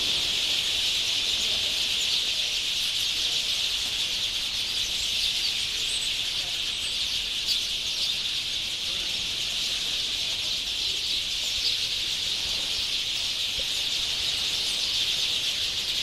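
A large flock of birds chattering and chirping together in trees at dusk as they settle to roost, a dense, steady din of many overlapping calls.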